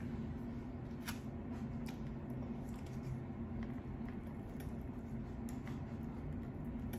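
Plastic fork and knife cutting and scraping food in a styrofoam takeout container, with scattered small clicks and scrapes over a steady low hum.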